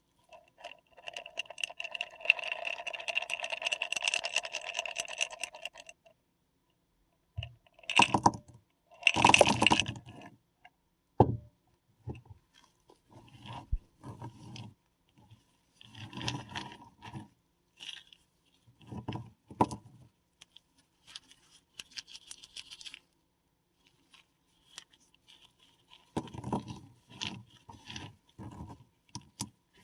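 Paradichlorobenzene mothballs being crushed and crumbled by hand: a continuous crackling crunch for the first six seconds, then a series of separate short crunching and scraping bursts, with one sharp snap about eleven seconds in.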